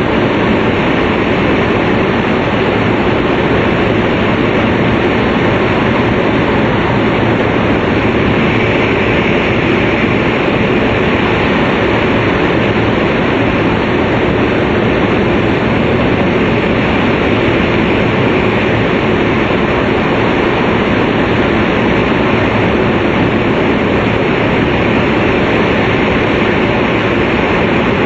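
Cabin noise of an E2-series Tohoku Shinkansen Hayate running at speed: a loud, unchanging rushing noise of wheels, rails and air, heard from inside the passenger car.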